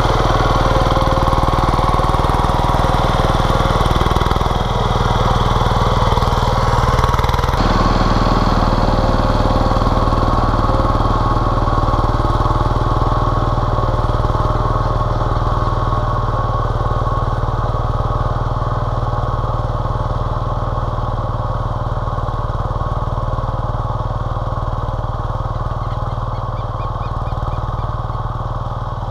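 Single-cylinder diesel engine of a Tobata walk-behind micro tractor running steadily under load as it tills the soil. The sound changes abruptly about eight seconds in, then fades gradually as the tractor moves away.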